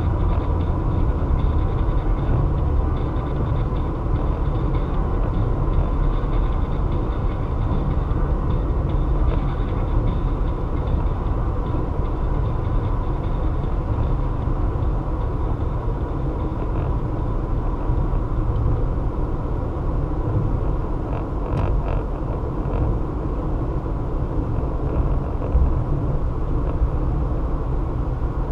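Steady low rumble of a car's engine and tyre noise, heard from inside the moving car in slow highway traffic, with a faint steady high tone running under it.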